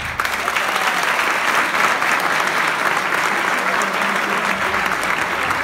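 Theatre audience applauding: dense, steady clapping that begins as the dance music ends.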